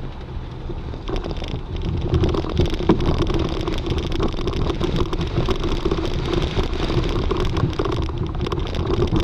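A 4x4's engine running as it drives along a bumpy dirt trail, heard from inside the cab, with short rattles and knocks from the body over the rough ground. It gets a little louder about two seconds in.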